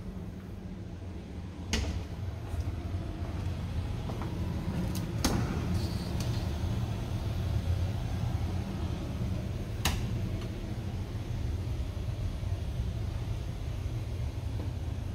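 Closet doors being handled: a few sharp clicks and knocks, about 2, 5 and 10 seconds in, over a steady low rumble.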